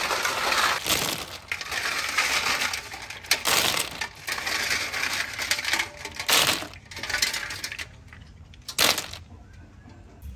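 Snail shells clattering and grinding against each other in irregular bursts as a batch is handled, dying down near the end after one last short rattle.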